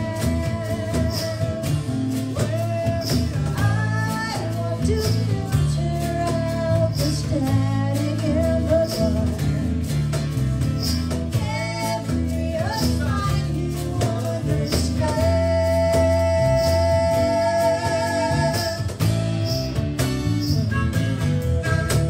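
Live acoustic band playing: a woman singing over acoustic guitar, electric bass and cajon, with a steady beat. There is a long held note about two-thirds of the way through.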